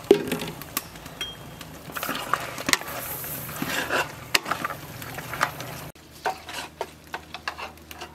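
Metal ladle stirring chunks of raw beef in a large metal pot, with repeated clinks and scrapes of metal on metal and a louder knock as it begins.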